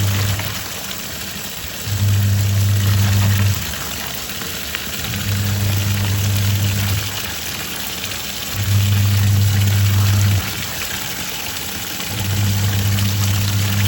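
Twin-tub washing machine in its wash cycle: the motor hums in runs of just under two seconds with short pauses between, as the pulsator turns one way and then the other, over continuous swishing water.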